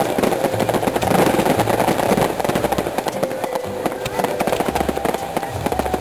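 Fireworks display in full barrage: a dense, continuous crackle of many small bursts, with deeper booms mixed in.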